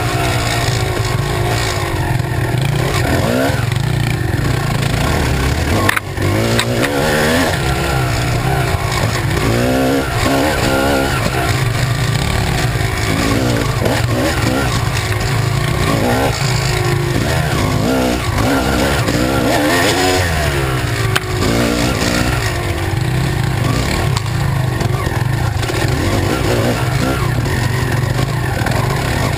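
Kawasaki KX250 two-stroke dirt bike engine running hard on a trail ride, its revs rising and falling over and over with the throttle, with a sharp knock about six seconds in.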